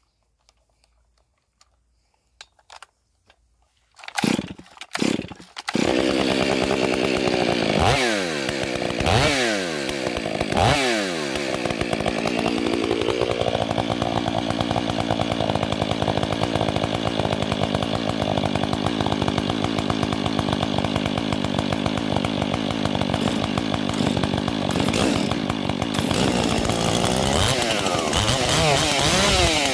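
Stihl 500i chainsaw started by its pull cord: a few short pulls about four seconds in, then it catches. It is blipped several times, each time the revs falling back, then runs steadily out of the cut. Near the end the engine note changes and the revs rise and fall again.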